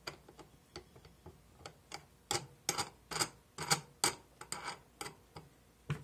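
Wing nuts being threaded and spun down on the studs of a metal mold frame, clamping it shut: a run of small irregular metallic clicks and clatters, thicker and louder in the middle.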